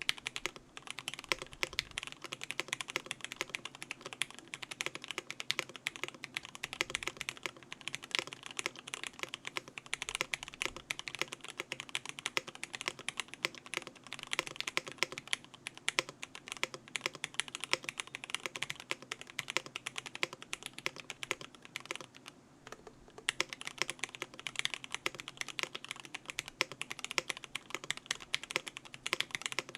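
Typing on a CannonKeys Practice 65 v2 mechanical keyboard fitted with lubed Gateron Milky Yellow linear switches and Cherry-profile PBT keycaps: a fast, continuous stream of keystroke clacks, with a short pause about two-thirds of the way through.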